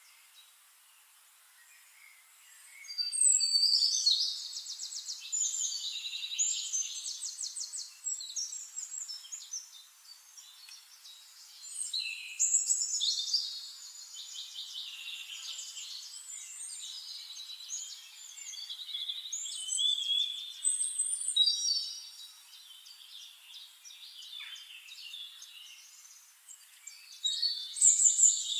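Wild birds chirping and calling in bursts of rapid, high trills a few seconds long, with short pauses between; the loudest bursts come about three seconds in and again near the end.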